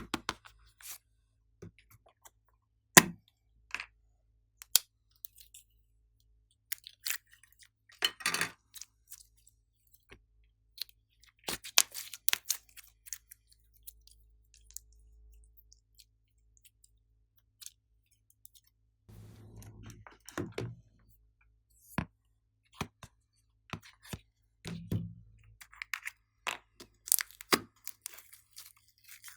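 Slime being squeezed and worked by hand: irregular sticky clicks, pops and crackles with short pauses between them.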